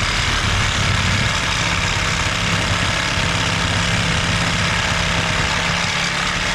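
Electric power tool running steadily under load, a constant motor hum with a dense, rattly noise.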